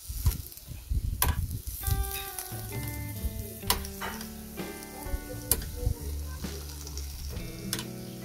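Skewered meat cubes sizzling on a gas lava-stone grill, with four sharp metallic clicks as the steel skewers are turned. Background music with held notes comes in about two seconds in.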